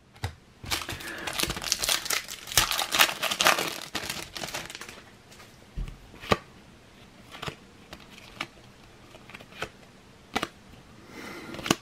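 A Topps Cricket Attax trading-card pack wrapper crinkling and tearing open for about four seconds, followed by scattered quieter clicks and snaps as the cards are handled and flicked through in the hand.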